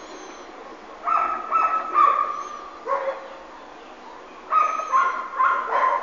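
Several dogs barking: a run of barks about a second in, a pause, then another quick run of barks in the last second and a half.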